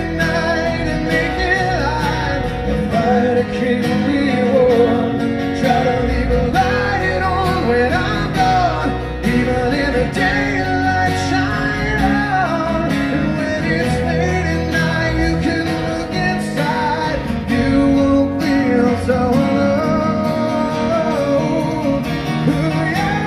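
Live acoustic band: strummed acoustic guitars and bass guitar, with a male lead voice singing over them.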